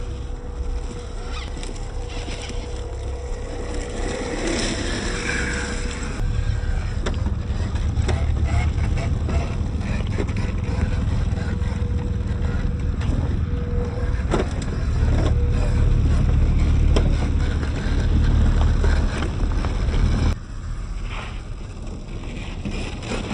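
1/10-scale Rochobby Mashigan RC crawler driving over loose gravel, with stones clicking and crunching under its tyres and a faint steady whine from its electric drive. Wind rumbles heavily on the microphone, and the rumble drops suddenly near the end.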